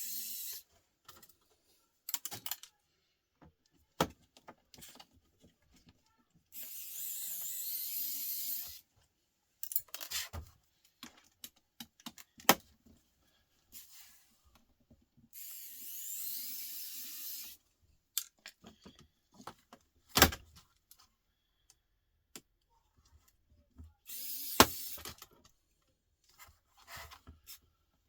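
Small battery-powered Parkside screwdriver running in short bursts of about two seconds, three times. Sharp clicks and knocks of handling and screws come between the bursts.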